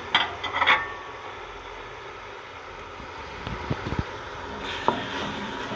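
Onion masala and tomato pieces sizzling as they fry in a pressure cooker while a wooden spoon stirs, with a few light knocks of the spoon against the pot. The sizzle turns brighter and hissier near the end.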